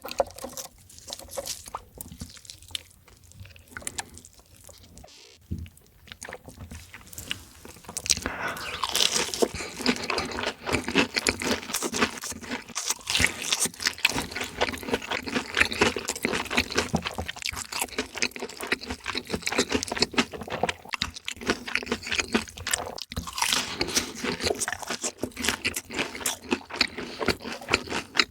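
Chewing and crunching of crispy fried chicken: a few scattered crunches at first, then dense, rapid crunching from about eight seconds in.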